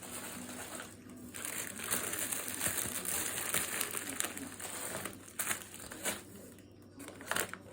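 Plastic snack packets crinkling and rustling as they are handled, dense for the first few seconds, then a few separate rustles and clicks near the end.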